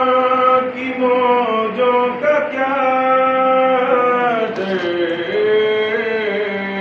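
A man singing a naat, an Urdu devotional poem in praise of the Prophet Muhammad, solo and unaccompanied. He holds long notes that slide and ornament from one pitch to the next.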